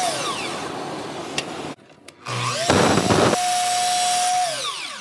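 Festool Kapex sliding miter saw cutting wood. The motor winds down from one cut, then about two and a half seconds in it starts again with a rising whine. The blade cuts through the wood for under a second, the whine holds steady, and it falls away near the end as the blade spins down.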